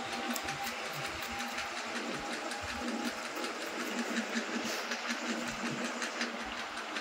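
Steady buzz of an electric hair clipper's motor, with faint light clicks of scissors snipping hair over a comb.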